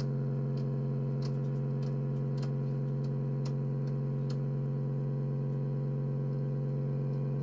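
Panasonic RX-5250 boombox giving out a steady low electrical buzz through its speaker, with faint scattered ticks over it.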